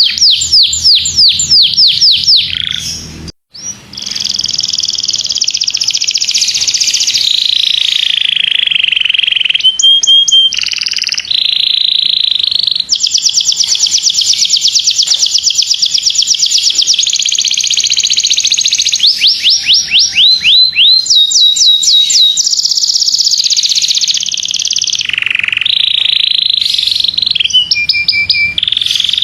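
Domestic canary singing a loud, continuous song of rapid trills and rolls, mixed with runs of quick falling notes, broken by a brief gap about three seconds in.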